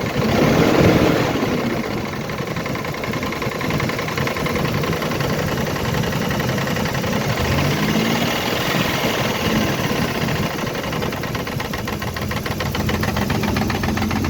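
Toyota 3VZ-E 3.0-litre V6 running with a knock, revved briefly about a second in and again around eight seconds in.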